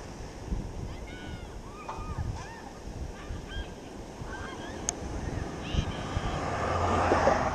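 Birds giving a series of short, arching calls, over a steady background of surf and wind. Near the end a louder rush of noise swells up.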